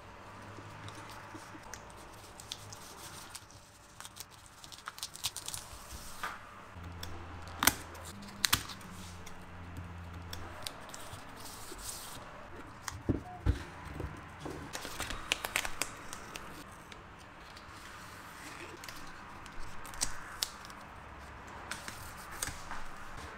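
Green insulating paper rustling and crackling as it is handled, folded and smoothed by hand onto a lithium-ion battery pack of 18650 cells, with scattered sharp clicks and snaps.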